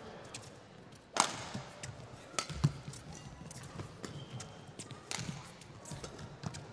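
Badminton rally: rackets striking the shuttlecock with sharp cracks, the loudest about a second in and others a second or more apart, with footfalls and a brief shoe squeak on the court mat between shots.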